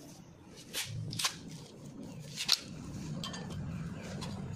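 Hand tools clinking on a car's front brake disc hub as a ring spanner and bolts are handled: a few sharp metallic clicks, the loudest about two and a half seconds in. A low, steady hum joins in the second half.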